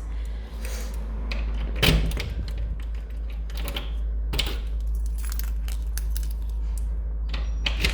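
A bunch of keys jangling and clicking as a Yale key is worked in a front-door lock, the key not turning. There are sharper clicks about two seconds in, about four and a half seconds in and near the end, over a steady low rumble.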